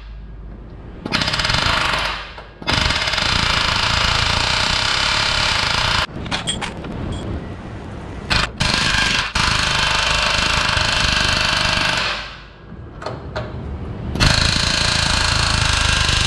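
Chicago Pneumatic CP717 air hammer driving a sharp chisel into the steel rivet heads on a truck frame, cutting the rivets off. It goes in several long runs of rapid hammering, with short pauses and a few quick bursts in between.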